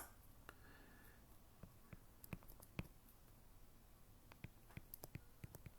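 Near silence with faint, scattered light taps and clicks of handwriting as an equation is written out.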